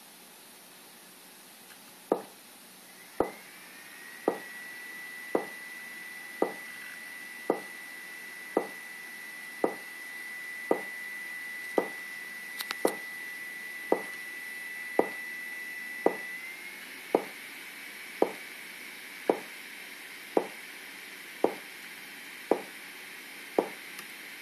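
Bounce sound effect of an MS-DOS Boing-ball demo: a short, sharp knock about once a second, starting about two seconds in once the demo begins. A steady high whine runs behind it from about three seconds in.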